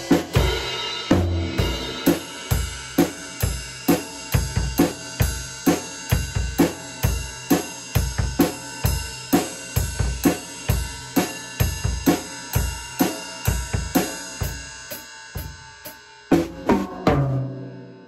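Yamaha acoustic drum kit played in a steady beat of bass drum, snare and cymbals, about two to three strokes a second. It drops off briefly about sixteen seconds in, then a few more strokes follow.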